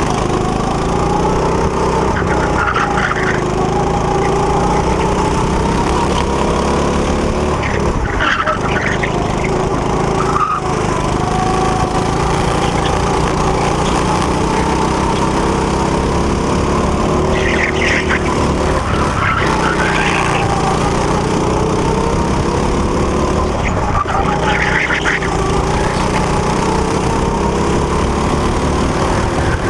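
Rental go-kart's small engine running hard, heard from the driver's seat, its pitch rising and falling as the kart accelerates on the straights and slows for corners.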